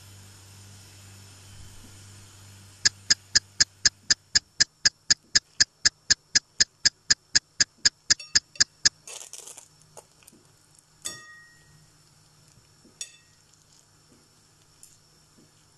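A rapid, evenly paced ticking sound effect marking time passing, about four sharp clicks a second for some six seconds, over a low hum. It is followed by a brief rustle and a few faint clinks.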